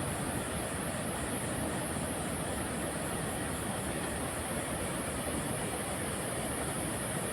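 Steady rushing of flowing water, an even unbroken roar, with a high hiss on top that pulses evenly a few times a second.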